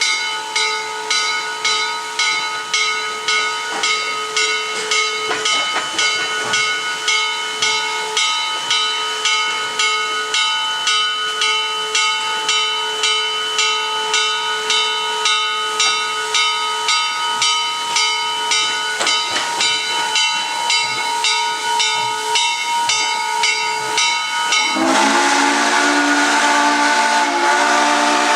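Locomotive bell on the Chesapeake & Ohio 2-6-6-2 Mallet steam locomotive 1309 ringing steadily, about two strikes a second, over steam hiss. Near the end the bell stops and the locomotive's steam whistle blows a long, loud chord.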